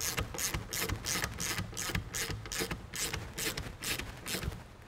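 Hand ratchet clicking as the bolts joining a brake hat to its rotor are run down snug: a quick, even run of sharp clicks, several a second, that thins out near the end.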